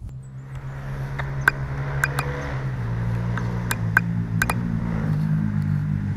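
DJI Avata's motors and propellers spinning at idle while the drone sits armed on the ground, a steady low hum that starts at once and shifts in pitch about three seconds in, with scattered sharp ticks.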